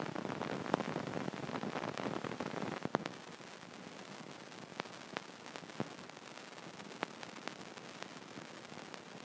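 Steady hiss of recording noise that drops in level about three seconds in, with scattered faint clicks.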